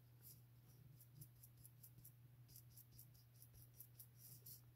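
Near silence, with faint, quick scratching of a coarse dry paintbrush's bristles stroking across a plastic model fence, repeating irregularly a few times a second over a low steady hum.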